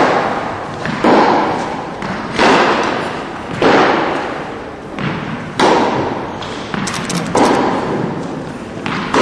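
Tennis ball hit back and forth with rackets in a practice rally, a sharp pock roughly every second. Each hit rings on in a long echo from the large indoor hall.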